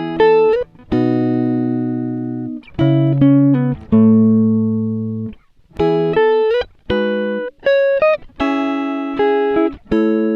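Background music of plucked-string notes and chords, each struck and left to ring out and fade before the next.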